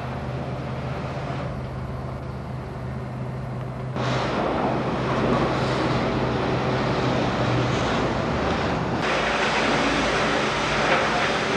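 British Rail Class 47 diesel locomotive's Sulzer V12 engine running at idle, a steady low hum. About four seconds in the sound jumps abruptly louder with a broad rushing noise, and it shifts again about nine seconds in.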